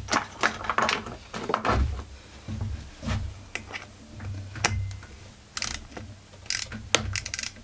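Hand ratchet clicking in short, irregular strokes, mixed with tool-on-metal clatter, as it is worked on a chainsaw fastener that doesn't move at all.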